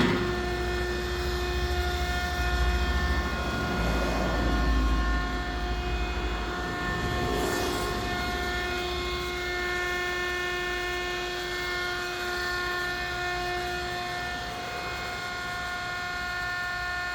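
Electric vegetable dicing machine running steadily, its motor giving a steady whine with several tones over a low rumble; the rumble is heavier for the first six seconds or so and then eases.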